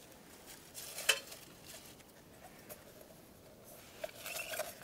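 Crumpled, burnt paper lining crinkling and rustling as gloved hands pull it out of a metal pot, with one light metallic clink of the pot about a second in.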